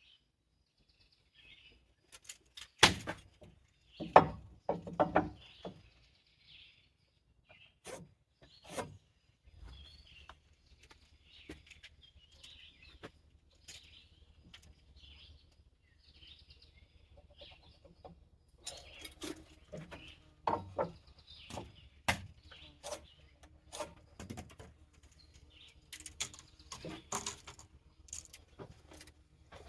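Small birds chirping on and off, with scattered sharp knocks and clunks from carpentry work on wooden rafters and headers, the loudest a few seconds in and a busier run of them in the second half.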